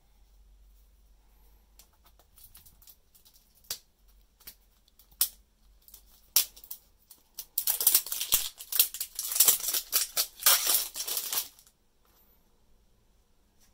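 Clear plastic wrap crinkling as it is peeled off an L.O.L. Surprise toy ball. A few scattered crackles come first, then about four seconds of dense crinkling that stops suddenly near the end.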